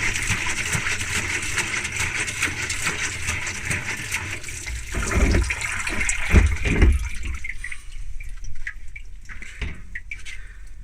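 Water spraying and splashing inside a Whirlpool Zen washing machine's drum, run with the door open. A few dull low thumps come around five to seven seconds in, and then the spray dies down.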